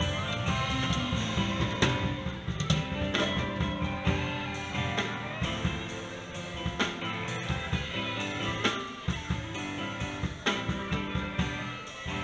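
Live band playing an instrumental piece, led by guitar over a drum kit, with steady drum hits through the music.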